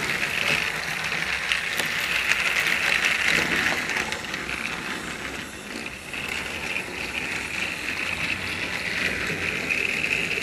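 Battery-powered TrackMaster Thomas toy engine running on plastic track, its small electric motor whirring steadily with the wheels rattling along the rails. The sound dips a little about halfway through, then comes back up.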